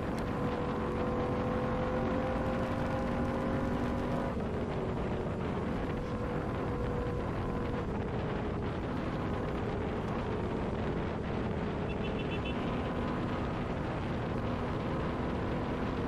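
Royal Enfield Continental GT 650's parallel-twin engine running steadily at highway cruising speed, under a steady rush of riding noise. Its note shifts slightly about four seconds in.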